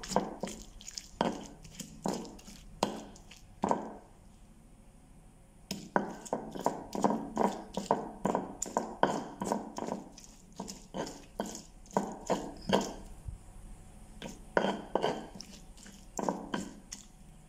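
A stone pestle pounding and grinding fried green chilies, shallots and bitter melon in a stone mortar (cobek): a series of sharp stone-on-stone knocks in irregular runs. The knocks pause for about two seconds a few seconds in, come thick and fast after that, and then thin out toward the end.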